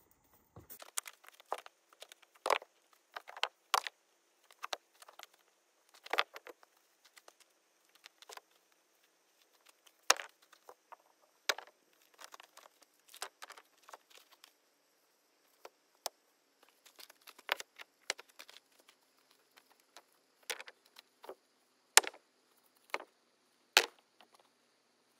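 Irregular sharp knocks, clicks and snaps of stony ground being cleared by hand, a few sharper strikes among them.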